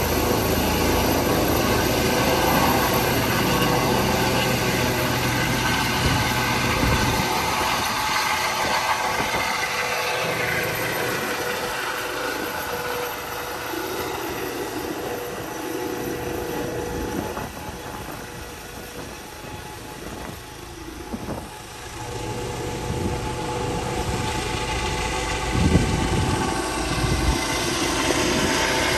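Airbus EC135 police helicopter's turbines and rotor running at full power as it lifts off and climbs away, a steady whine over the rotor noise. The sound eases off in the middle, then grows louder again over the last few seconds as the helicopter comes back overhead.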